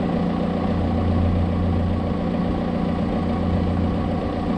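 Diesel engine of a John Deere 110 excavator idling steadily.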